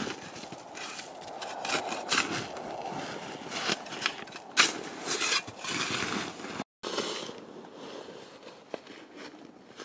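Snow being dug and scraped with a snow shovel and pushed by hand, in irregular crunching, scraping strokes. The sound breaks off abruptly about two thirds of the way through, leaving only faint, sparse sounds.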